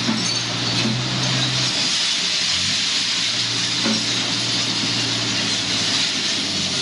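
Glass crusher machinery running: a steady low hum with a hiss over it, the hum cutting out for about a second roughly two seconds in and then coming back at a slightly different pitch.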